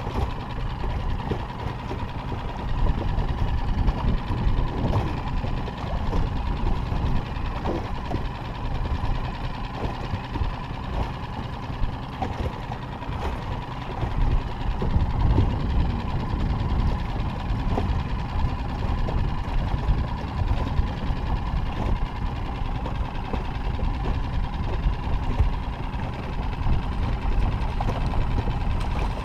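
Steady, fluctuating low rumble of wind buffeting the microphone and small waves against an inflatable boat.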